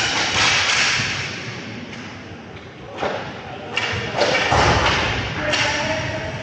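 Sharp knocks and thuds of play in an inline hockey game: sticks and puck striking and banging off the boards, several times, the loudest at the start and around four seconds in.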